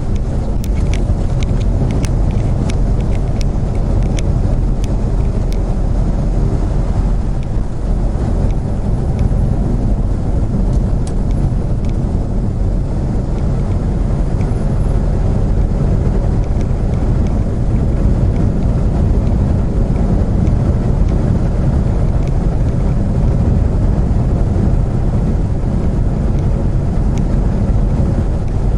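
Steady, loud rumble of a vehicle's engine and road noise heard from inside the cab while it climbs a mountain grade. A few light ticks come in the first several seconds.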